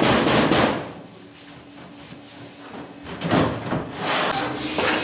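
CNC woodworking machining center running, with a hiss of air over a low mechanical hum. The hiss is loud at first, falls away after about a second and swells again in the last two seconds.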